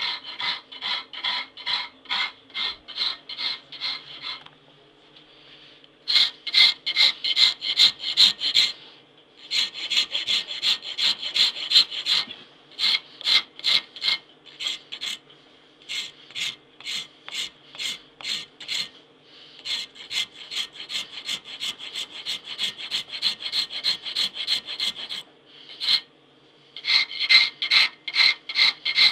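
Hand file rasping along a knife blade clamped in a vise: quick back-and-forth strokes, about two to three a second, in runs broken by short pauses.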